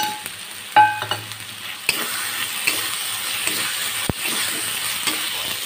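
Chopped tomatoes frying in hot oil and masala in a kadai, sizzling steadily while a spatula stirs and scrapes the pan. A brief loud knock about a second in, and the sizzle grows louder about two seconds in.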